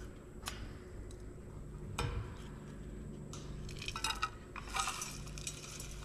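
Light clinking and clattering of hard objects: a sharp click about half a second in, another at two seconds, then a busier run of small clinks and rattles in the second half.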